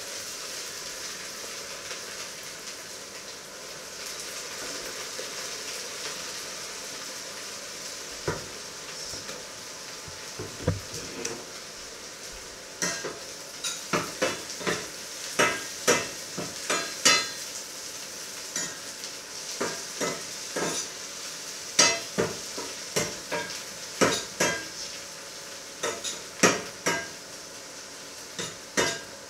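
Eggs sizzling steadily in a frying pan. From about twelve seconds in, a spatula scrapes and knocks against the pan, roughly twice a second, as the eggs are stirred.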